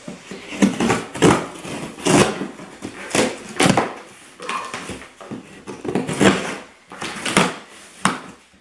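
Packing tape being slit and ripped off a large cardboard shipping box, with cardboard scraping, in about ten short, irregular ripping strokes.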